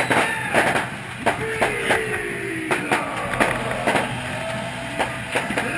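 Stadium music over the public-address system, with many irregular sharp knocks and clatter.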